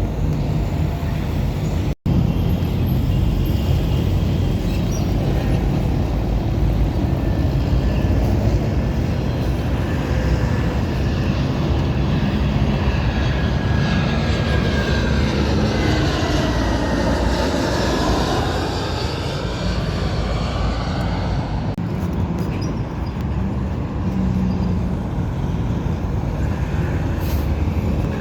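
Jet airliner on landing approach passing low overhead: steady engine noise with a sweeping whoosh that falls and then rises in pitch as the plane passes closest, about two-thirds of the way in.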